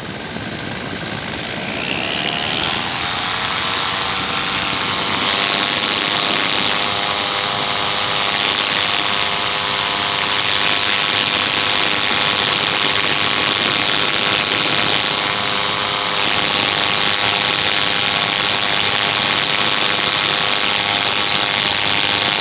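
Paramotor engine and propeller revving up about two seconds in, then running steadily at higher throttle over a rushing hiss.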